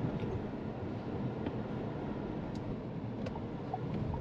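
Steady road and tyre noise with a low engine hum inside the cabin of a SsangYong Torres SUV driving at about 50 km/h. A few faint clicks come through, and a light regular ticking starts near the end.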